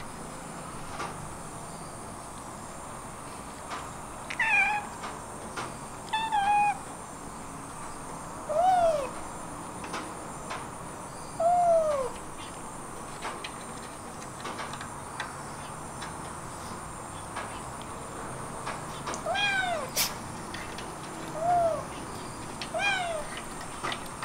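Kittens meowing: about seven short meows spread out, several with a pitch that rises and then falls.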